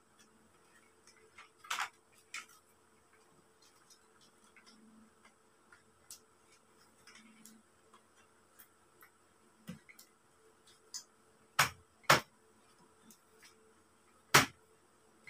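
Scattered light clicks and knocks of telescopic clothes-rack parts, metal poles and black plastic joint fittings, being handled and pushed together, with three sharper knocks in the last four seconds.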